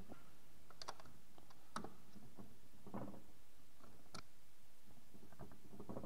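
Light, scattered clicks and taps of an Allen wrench and hands on the riser's metal and plastic frame as the long screws are tightened into the front plate's nuts, a handful of clicks a second or so apart over faint room hiss.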